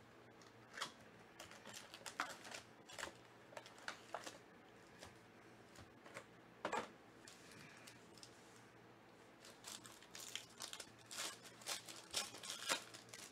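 Foil trading-card packs and their cardboard box being handled, giving scattered crinkles and crackles. Near the end a foil pack is torn open by hand.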